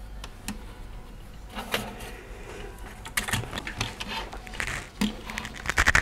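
Plastic fan shroud of an ASUS Strix GTX 1080 graphics card being handled and worked loose by hand: scattered light clicks and short rustles, with a small cluster near the end.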